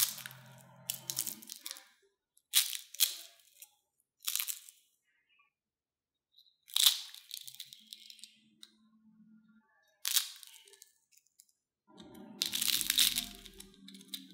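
Crisp fried potato and corn-starch triangles snapped and torn apart by hand: a run of separate sharp crackles, then a longer stretch of dense crunching near the end.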